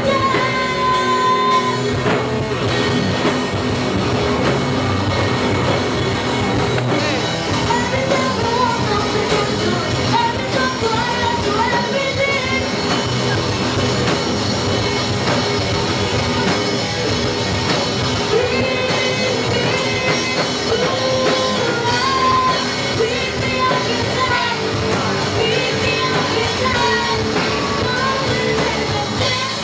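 Live rock band: a girl singing into a microphone over electric guitars and a drum kit, played loud through the PA amplifiers.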